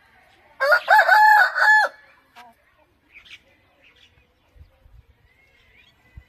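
An Aseel rooster crows once, a call of about a second and a half starting about half a second in, held on a steady pitch and dropping off at the end. Faint chirps and clucks follow.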